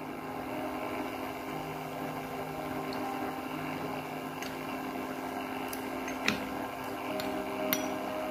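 A steady low hum, with a couple of light clinks near the end as a metal spoon touches the glass bowl of lemon juice and water.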